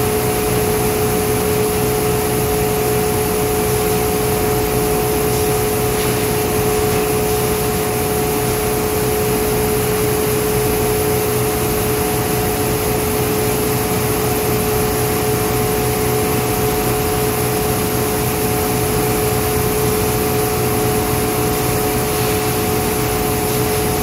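Steady, unbroken drone of running machinery around an automatic weighing and bagging scale, with a constant two-note hum over a wide noise. It stays level with no starts or stops while sacks are filled.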